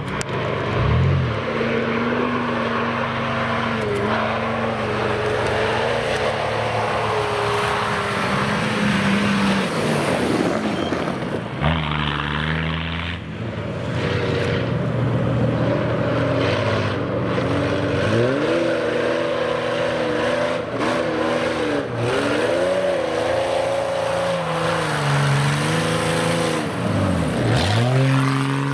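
Off-road 4x4 engine revving hard under load, its pitch surging up and down again and again; near the end the mud-covered, roll-caged 4x4 comes close past.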